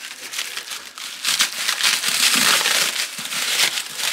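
Paper wrapping being unwrapped and crumpled by hand, a continuous crinkling rustle with many sharp crackles.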